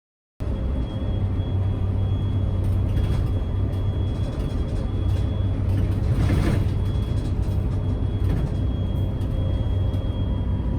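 Steady low vehicle rumble, cutting in about half a second in.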